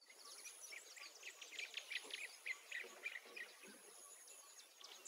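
Faint woodland birds chirping, many quick short calls overlapping, over a soft outdoor background hiss with a thin, steady high-pitched whine.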